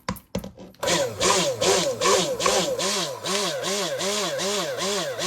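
Immersion (stick) blender running in raw cold process soap batter to bring the lye and oils toward trace. It starts about a second in after a few clicks, and its motor pitch rises and falls about two to three times a second as it works through the mixture.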